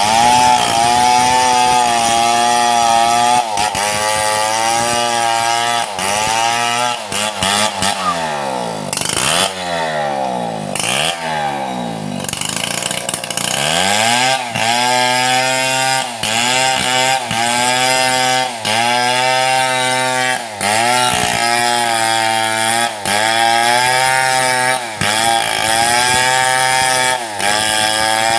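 Two-stroke chainsaw ripping a mahogany log lengthwise at full throttle, its pitch sagging again and again as the chain bites into the wood. About a quarter of the way through the throttle is let off to idle and blipped a few times, then it revs back up and keeps cutting.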